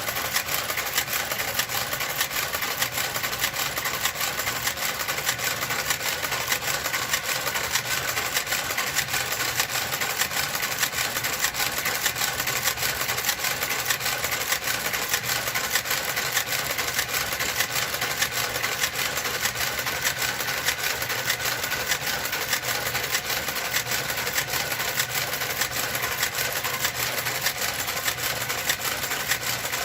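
Knitting machine running steadily as it knits, its mechanism giving a fast, even clicking over a constant hum.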